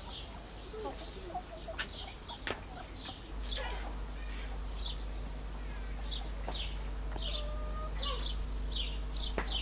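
Small birds chirping over and over in short, high, falling notes, with a few soft hen clucks in the first second or two.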